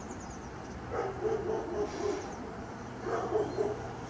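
Two short series of animal calls about two seconds apart, each a few quick pitched calls, over steady outdoor background noise.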